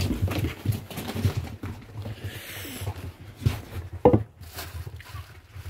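Handling noise: scattered knocks and clatter with a stretch of plastic rustling in the middle, and one sharp knock about four seconds in.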